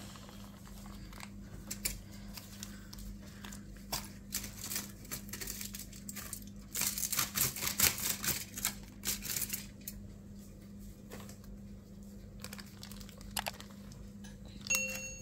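Baking paper crinkling and tearing as it is peeled off the bottom of a freshly baked chocolate cake and handled, in scattered crackles that are thickest in the middle.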